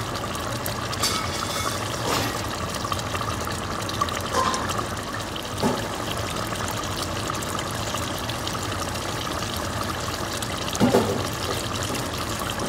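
Chicken curry boiling hard in a steel pot: a steady bubbling with a few brief louder pops.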